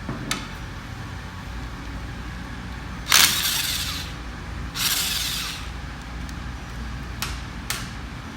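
Two short runs of a hand-held power tool, each about a second long, the first about three seconds in and the second about five seconds in, with a few light metal clicks around them.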